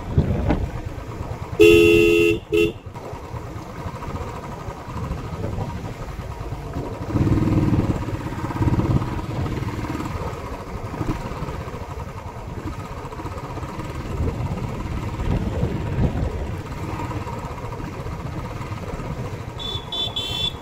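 Royal Enfield Classic 350's single-cylinder engine running steadily under way, heard from the handlebars with road and wind noise. A horn toots loudly for about a second, about two seconds in.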